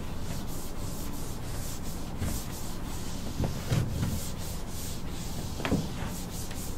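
Whiteboard eraser rubbing across a whiteboard in repeated wiping strokes, clearing off marker writing.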